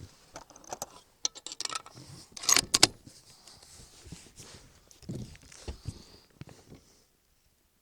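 Short metallic clicks and rattles of a rifle and shooting gear being handled, loudest about two and a half seconds in, then stopping about a second before the end.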